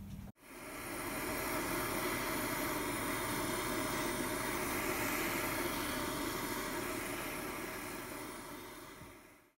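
Handheld gas blowtorch flame hissing steadily while heating a seized propeller-shaft coupling clamped in a bearing puller, to free it. The sound fades in just after the start and fades out near the end.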